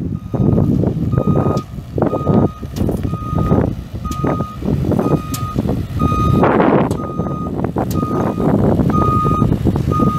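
Backup alarm on a 2005 Chevrolet 4500 flatbed truck, beeping in one steady tone about once a second: the truck is in reverse. Under the beeps runs an uneven rumble of the truck's Isuzu 6.6L V8 diesel.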